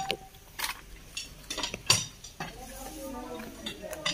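Screw jacks under a house being raised, turned with steel bars: several sharp, irregularly spaced metallic clinks and clanks of bar on jack.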